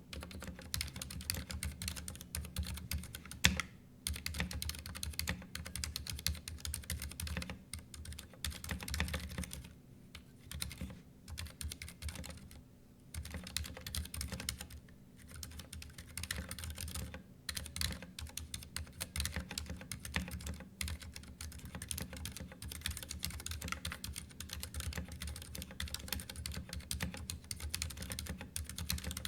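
Typing on a Ducky One 2 Mini mechanical keyboard: quick runs of key clicks broken by short pauses, with one much louder keystroke about three and a half seconds in.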